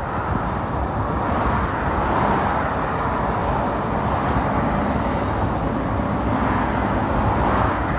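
Steady road and tyre noise of a vehicle on the move, an even rushing sound without a distinct engine note.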